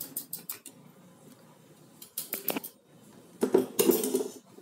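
Metal spoon and wire frying strainer clinking and scraping against a ceramic plate as fried food is scooped onto it, in short bursts of clinks at the start and around two seconds in, with a louder clatter near the end.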